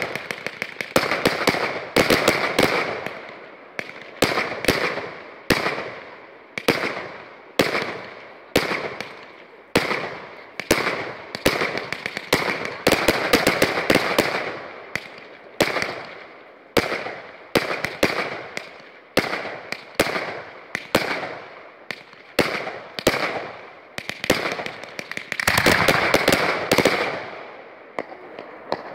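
Fireworks display: a ground-launched battery firing shot after shot, with sharp bangs about once or twice a second and crackling between them. A dense volley of bangs and crackle comes near the end.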